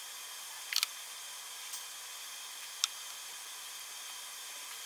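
Steady faint background hiss with a few light clicks and ticks, about three spread over the stretch, from a steel digital caliper being handled and slid into place against a hub motor's magnet ring.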